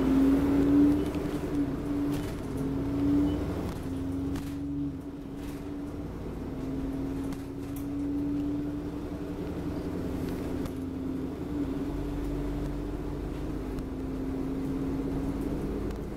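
An Alexander Dennis Enviro400 double-decker bus on a Trident chassis running along the road, heard from inside on the upper deck: a steady drivetrain hum that wavers slightly in pitch, over continuous low road and engine rumble.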